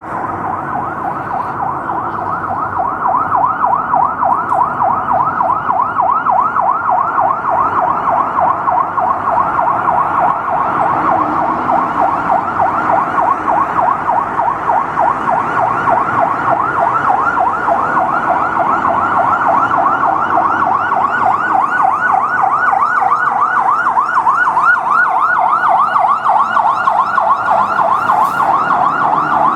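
Fire engine siren in a rapid yelp, its pitch sweeping up and down several times a second. It grows louder over the first few seconds, then stays loud over a low hum of street traffic.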